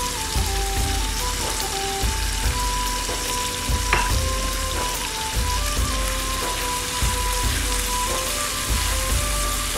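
Chicken strips, bell peppers and shredded cabbage sizzling in a hot wok as they are tossed with a spatula, with background music playing over it.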